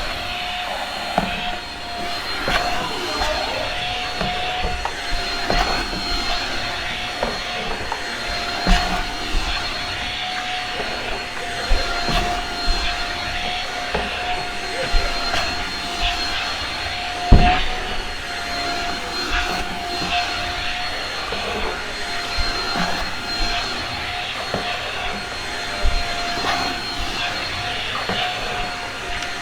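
Shark Rocket corded stick vacuum running steadily with its motorised power head, a constant whine over a rushing hum. Occasional knocks come through as it is worked over the carpet, the loudest about 17 seconds in.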